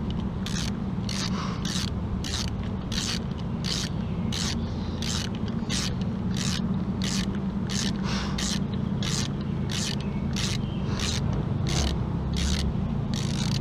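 Socket ratchet turning out an 8 mm valve cover bolt, its pawl clicking in short bursts about twice a second on each swing of the handle, over a steady low hum.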